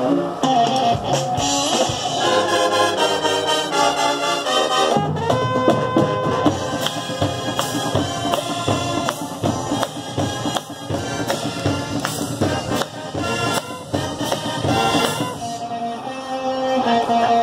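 High school marching band playing: brass and woodwinds over drums and front-ensemble mallet percussion, with the low end filling in about five seconds in.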